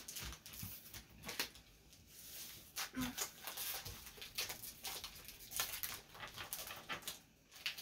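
Soft scattered clicks and rustles of Pokémon trading cards and foil booster-pack wrappers being handled.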